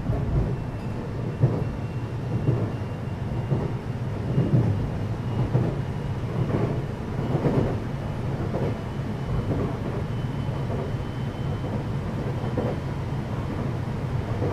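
Interior running sound of a JR West 521-series electric train motor car on the move: a steady low rumble of wheels on rail with irregular knocks every second or two and a faint high whine.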